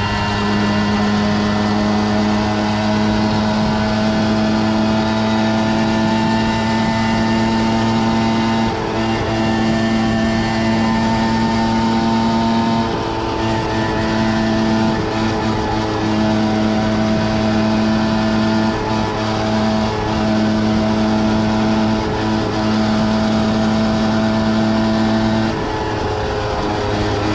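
Peugeot 103 moped's two-stroke single-cylinder engine running at steady high revs under way, with a few brief dips in the engine note.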